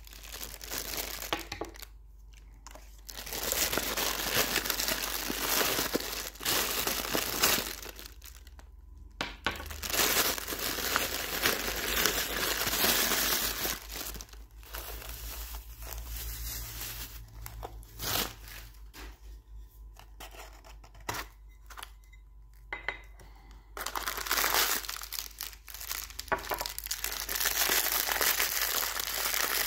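Plastic packaging crinkling and rustling as a parcel is unwrapped by hand: a plastic mailer bag, then the plastic wrap around a soldering tip cleaner holder and its bagged wire ball. It comes in loud stretches with quieter pauses between.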